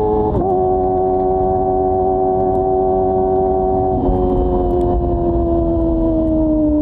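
Kawasaki ZX-25R's inline-four engine through a Yoshimura R-11 slip-on exhaust, running under way at a steady high note. The pitch dips briefly about half a second in and again around four seconds, then sinks slowly as the revs fall.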